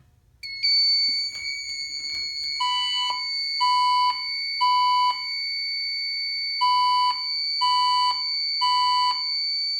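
Fire-Lite fire alarm system in general alarm. A steady, high-pitched piezo tone from the control panel starts about half a second in and holds. From about two and a half seconds the ECC-50 voice-evacuation speakers sound a mid-pitched tone in the temporal-three pattern: two groups of three beeps, the evacuation signal that comes before the voice message.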